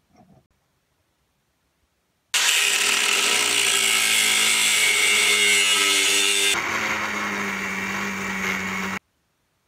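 Angle grinder grinding along the edge of a steel blade: a harsh grinding noise with a steady whine. It starts abruptly about two seconds in, drops to a lower, quieter pitch about four seconds later, and cuts off abruptly near the end.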